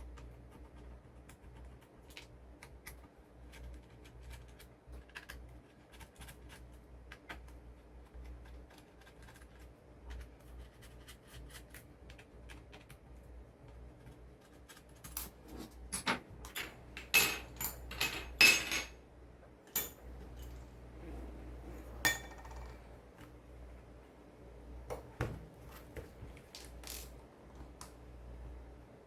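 Small hard plastic and metal parts of a keyboard's Cherry stabilizers clicking and clinking as they are handled and taken apart. The light ticks turn into a louder clatter about halfway through, followed by one sharp clink a few seconds later.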